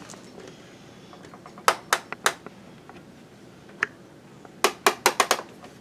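Sharp clicks and taps in small groups: three quick ones about two seconds in, a single one near four seconds, and a rapid run of them near the end.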